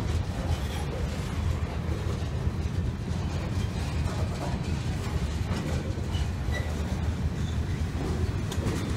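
Freight train of covered hopper cars rolling past close by: a steady heavy rumble and rattle of steel wheels on the rails. A few brief faint wheel squeaks come about two-thirds of the way through.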